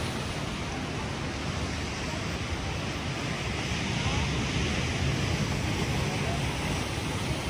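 Wind buffeting the microphone over a steady rush of sea surf.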